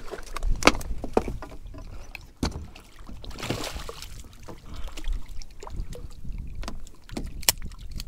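Scattered knocks, bumps and rustles of handling on a fishing kayak, with wind rumbling on the microphone.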